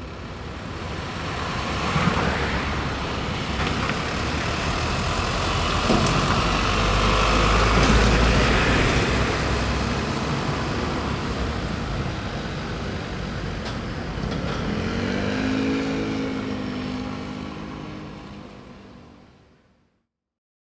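Road traffic: cars passing on a road, swelling to a loudest pass about eight seconds in. Near the end an engine note rises in pitch as a vehicle accelerates, then the sound fades out.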